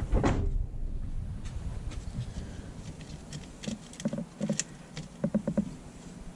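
A thump right at the start, then clusters of light clicks and knocks from about three and a half seconds in: the car's dashboard heater temperature control being worked to open the heater valve.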